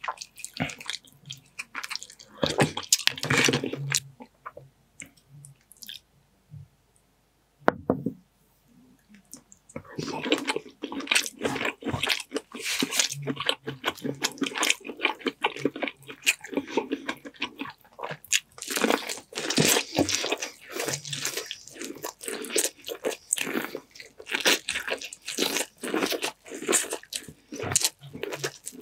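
Close-miked eating: crab and shrimp shells cracking and crunching, with chewing. There is a near-quiet pause of a few seconds about a quarter of the way in, after which dense crunching and crackling run on.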